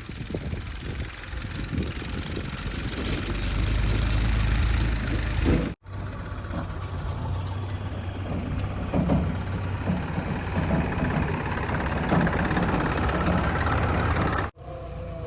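JCB 3DX backhoe loader's diesel engine running steadily while working, with irregular knocks over it. The sound breaks off abruptly twice, about a third of the way in and near the end.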